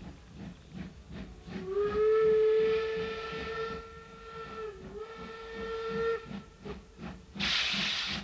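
Steam locomotives running past with a steady rhythm of exhaust chuffs. A steam whistle sounds from about a second and a half in, holds one tone for nearly five seconds, and dips briefly in the middle. Near the end comes a loud hiss of steam venting at the cylinders.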